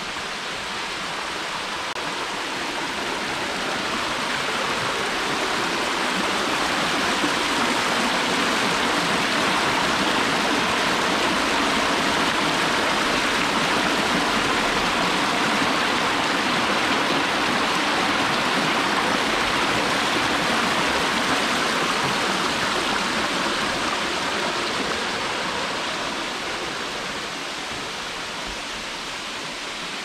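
Ancaster Creek rushing and splashing over rocks below Sherman Falls, a steady noise of running water. It grows louder a few seconds in and fades back down near the end.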